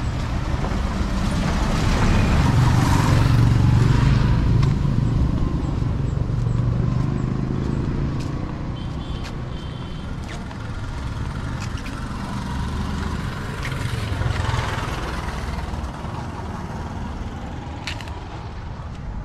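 Road traffic: a motor vehicle's engine rumbles past, swelling over the first several seconds, and another passes in the second half, with a short high beep about halfway through.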